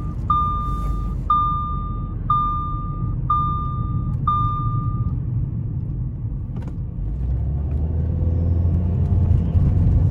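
Engine and road rumble inside a moving Audi A4, whose 2.0 TFSI four-cylinder is running on gasoline mixed with used engine oil. The rumble grows louder after about seven seconds. Over the first five seconds there are five evenly spaced electronic beeps, about a second apart, and then they stop.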